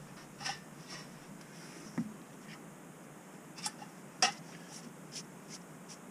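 Scattered light metallic clinks and knocks from a small metal camp cookware cylinder being handled on a wooden stump and set down by a stone, with one dull thump about two seconds in and the sharpest clink a little past four seconds.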